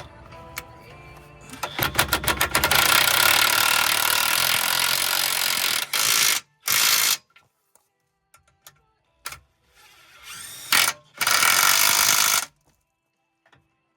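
Impact wrench hammering on a suspension bolt in three bursts: a long run about two seconds in, a short one near the middle, and another near the end.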